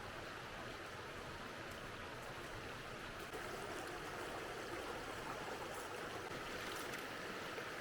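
Mountain creek flowing: a steady rush of running water.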